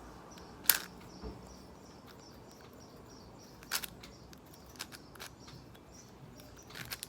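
A 6x6 speed cube (MGC 6x6) being turned mid-solve: a few sharp plastic clicks, spaced irregularly, the loudest about a second in. Faint high chirping repeats quietly behind them.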